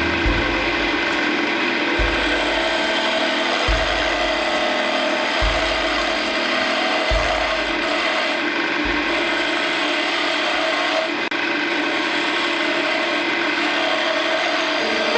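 Wood lathe running while a tool works the spinning wood: a steady rasping, with a low thud about every 1.7 seconds that stops about nine seconds in.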